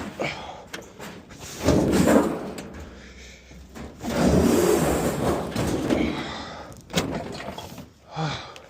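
Scrap metal being shifted and loaded onto a trailer: sharp knocks and thuds, with two longer clattering stretches about two and four seconds in.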